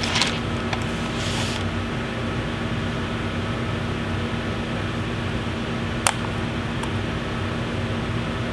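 Steady mechanical hum with a low drone. About six seconds in there is a single sharp click.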